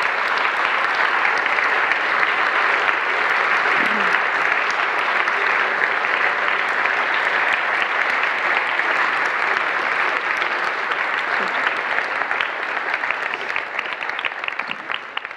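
Audience in a lecture hall applauding steadily. Toward the end the applause thins out and fades, and single claps stand out.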